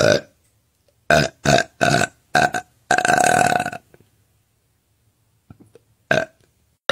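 A young woman burping: a string of short burps, a longer drawn-out burp about three seconds in, and one last short burp near the end.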